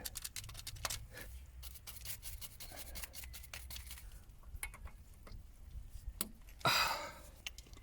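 Hand work at a grease nipple on a JCB mini excavator's boom pivot pin: a string of small clicks and rubbing, with a short breathy rush about seven seconds in.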